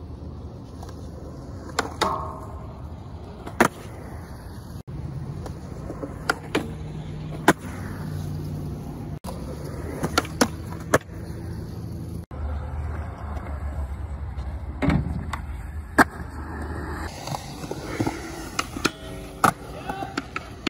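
Skateboard wheels rolling on concrete, with a dozen or so sharp clacks of the board popping, striking rails and ledges, and landing. The rolling rumble changes abruptly several times as one run gives way to another.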